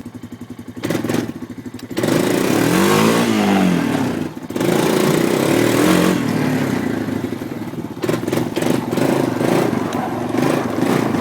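ATV engine running, revved up and down a couple of times: the pitch rises and falls about two to four seconds in and again around five to six seconds, then it keeps running.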